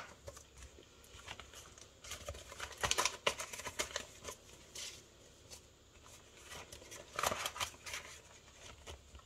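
Rustling and crinkling of Canadian polymer banknotes and a clear plastic zipper pouch in a budget binder being handled. It comes in two flurries of short crackles, about two seconds in and again about seven seconds in.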